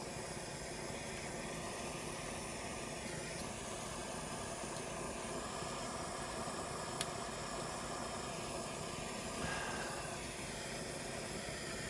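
Gas soldering torch flame hissing steadily while it heats a brass paint tray, with a faint click about seven seconds in.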